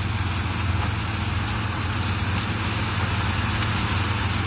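Sugarcane harvester running as it cuts cane, with a tractor driving alongside: a steady diesel engine drone, a constant low hum under an even wash of machinery noise.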